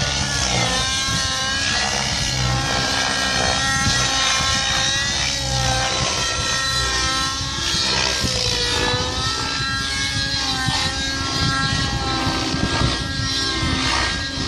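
Radio-controlled helicopter flying, its motor and rotor whine rising and falling in pitch over a rapid low rotor chop as it manoeuvres.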